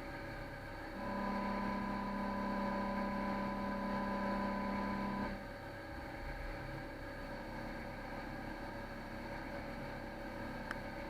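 CNC lathe running with a steady machine hum. A louder steady whine starts about a second in and stops abruptly about four seconds later, then the hum carries on.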